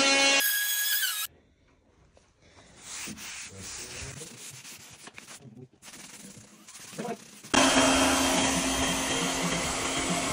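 Handheld hair dryer blowing, cutting off about a second in. A few seconds of quieter rubbing and handling sounds follow, then the hair dryer switches back on and runs steadily with a low hum.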